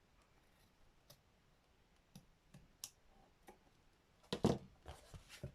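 Scattered light clicks and taps from a handmade journal and its papers being handled on a desk, with a louder flurry of handling noises about four seconds in.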